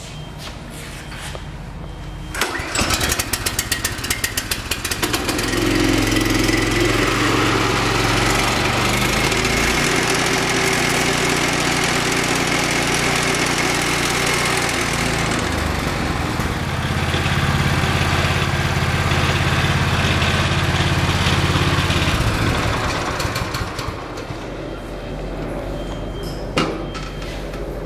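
The 14 hp Kohler single-cylinder gas engine of a walk-behind stump grinder catches and fires in rapid pulses about two seconds in, then runs up to a steady high speed. Near the end it settles to a lower, quieter running speed.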